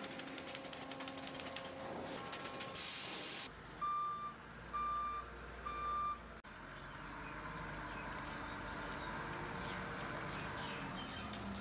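Rapid mechanical clicking and rattling of machinery, then a vehicle's reversing alarm beeping three times, then steady heavy machinery running.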